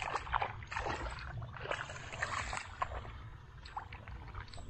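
Water sloshing and splashing in irregular bursts over a steady low rumble. The splashes thin out and grow fainter over the last second or so.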